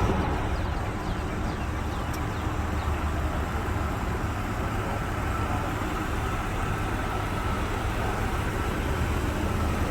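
Steady low rumble of vehicle engines and traffic, with a faint steady whine above it.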